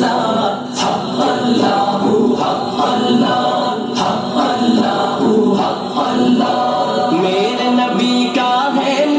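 Voices singing a naat, an Islamic devotional song, together without instruments, in an a cappella style.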